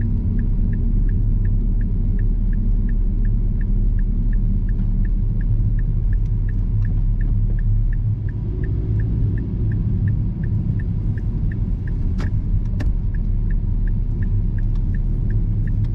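Steady low rumble of road and engine noise inside a Mazda Axela Sport's cabin while driving. A faint regular tick sounds about three times a second, and there are two sharp clicks a little past the middle.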